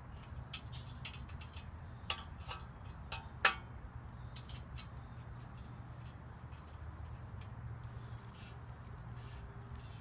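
Several light metal clicks and clinks as a caster and its screws are worked by hand onto a steel engine-crane leg, the sharpest about three and a half seconds in. Crickets chirr steadily in the background.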